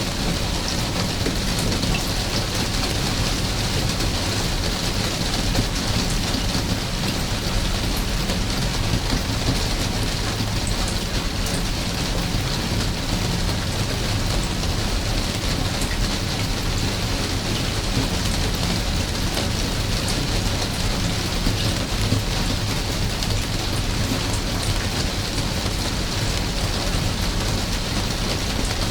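Steady rain falling: an even, unbroken hiss scattered with the ticks of close drops, over a constant low rumble.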